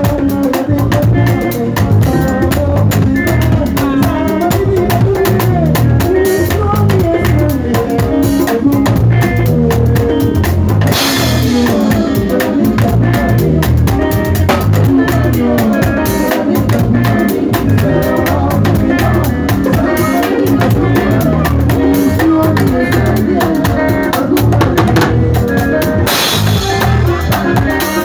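Live band music led by a drum kit played hard and busy, with rapid snare and tom strokes and two loud crash-cymbal hits, one about eleven seconds in and one near the end, over a bass line and keyboard.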